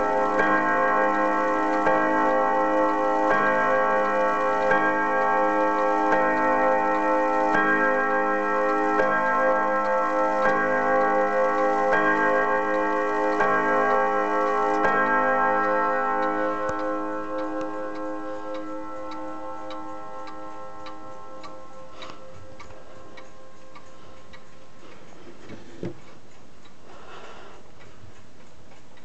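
A 1920s German Haller wall clock striking on its gong rods: a slow run of single, evenly spaced strikes about one and a half seconds apart, each ringing on. The ringing fades away about halfway through, leaving the clock's steady ticking.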